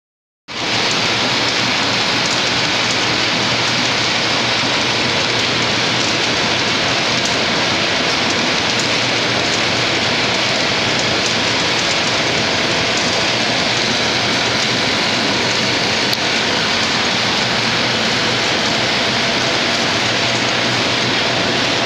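Lollipop pillow-pack packing machine running: a loud, dense, steady rattle like rain, with a faint low hum underneath. It starts about half a second in.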